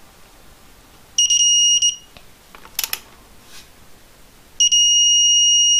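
Digital torque wrench beeping as the crank pulley bolt is torqued to 120 ft-lb: a short, broken beep about a second in, then a steady beep from well past the middle, the wrench's signal that the set torque is reached. A single sharp click falls between the two beeps.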